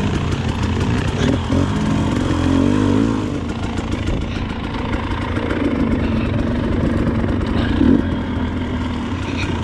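Dirt bike engine running, its revs rising and falling.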